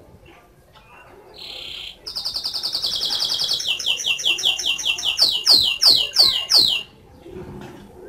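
Domestic canary singing one song phrase: a short buzzy note, then a fast high trill that steps down in pitch, ending in about five loud downward-sliding whistles before it breaks off about seven seconds in.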